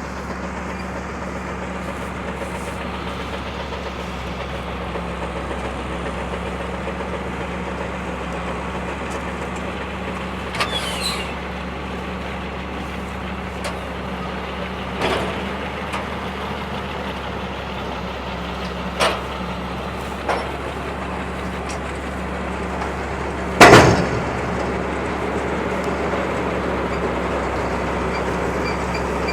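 John Deere 4440 tractor's diesel engine running steadily under work, with about five sharp metallic clanks from the hay equipment, the loudest about three-quarters of the way through.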